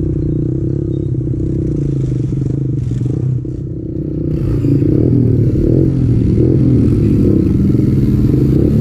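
Kawasaki KLX110 pit bike's single-cylinder four-stroke engine running under the rider. It eases off briefly about three and a half seconds in, then picks up again louder, with wind and road noise.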